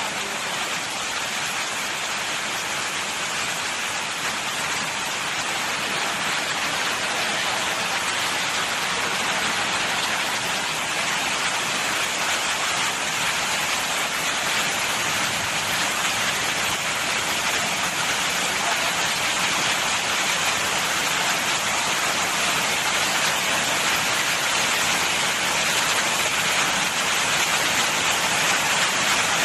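Heavy rain pouring onto a flooded street: a steady hiss that slowly grows louder.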